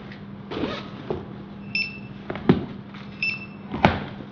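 Library loan-desk scanner beeping twice, about a second and a half apart, as returned books are checked in, with several knocks of the books being handled on the counter; the loudest knock comes near the end. A steady low hum runs underneath.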